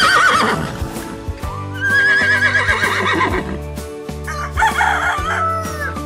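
A horse's whinny trails off at the start, then a rooster crows, over steady background music.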